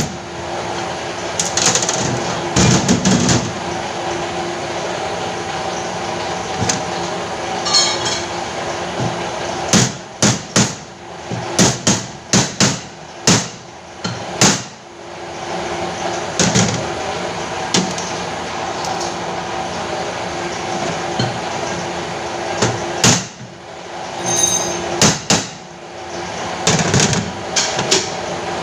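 Irregular hard knocks and taps, in clusters of quick strokes, like hammer blows during repair work, over a steady machine hum.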